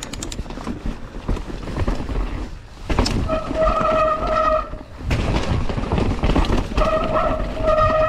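Mountain bike descending a trail, with rough rattle and tyre noise from the ride. Twice a steady high buzz of the rear freehub while coasting sounds, each about a second long: one at about three seconds in, and again near the end.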